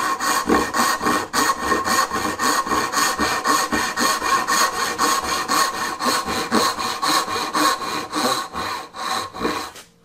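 Brass-backed dovetail saw cutting by hand down the tail lines of a through dovetail in a board clamped in a vise, in quick, even strokes. The sawing stops just before the end.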